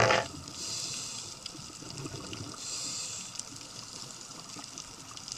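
Underwater sound of a scuba diver breathing through a regulator: hissing swells about every two seconds over a low bubbling rumble, with a loud burst of bubbles right at the start.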